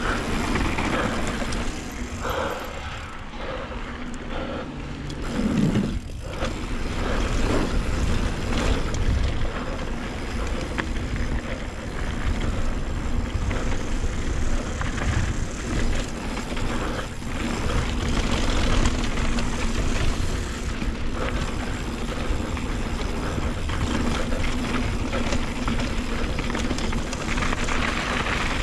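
Scott Ransom full-suspension mountain bike descending a rough, choppy downhill trail, heard from a chin-mounted action camera: continuous wind rush and tyre rumble with the bike rattling and knocking over the chatter bumps.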